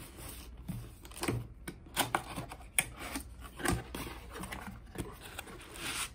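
Cardboard packaging being handled and opened: a string of irregular taps, knocks and scrapes as the box flaps are pulled open, with a rubbing hiss near the end as a foam packing insert is slid out.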